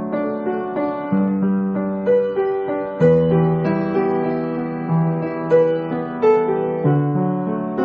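Background piano music: single notes struck over held chords, at an unhurried pace.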